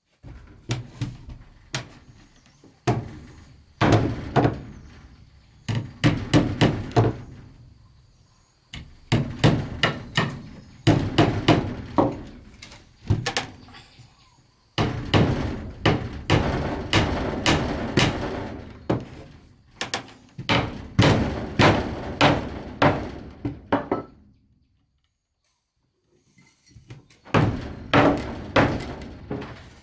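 Heavy blows of a tool on wood, struck in quick runs of several hits with short pauses between the runs, each strike a dull thunk with a short ring.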